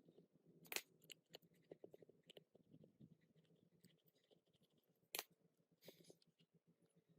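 Faint scattered clicks, taps and light scraping from small parts being handled, with two sharper clicks, about a second in and about five seconds in, over a low steady hum.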